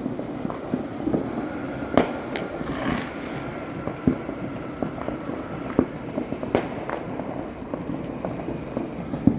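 Diwali fireworks and firecrackers going off: irregular sharp bangs and cracks over a steady background, the loudest about two seconds in, two more in the middle, and one just before the end.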